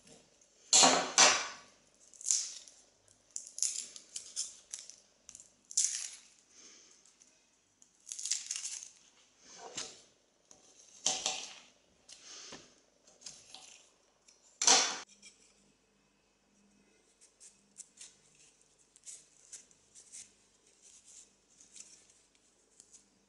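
Garlic being broken apart and peeled on a marble worktop: dry, papery skins crackling and rustling, with sharp knocks of a kitchen knife on the stone, the loudest about a second in and again about 15 seconds in. After that there are only faint small clicks over a low hum.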